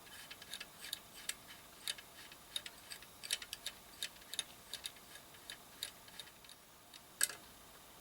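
Irregular light clicking and tapping of small hard objects, a few clicks a second, with one sharper click about seven seconds in.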